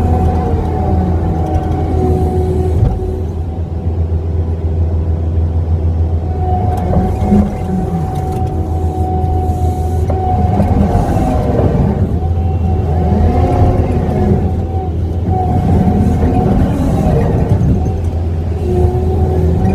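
Kubota skid steer's diesel engine running under load, with a steady low hum and a higher steady whine; several times the pitch dips and rises again as the machine works.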